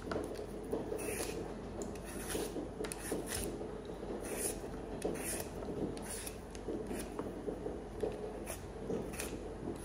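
Vegetable peeler scraping along a raw potato's skin in short, irregular strokes, about one a second.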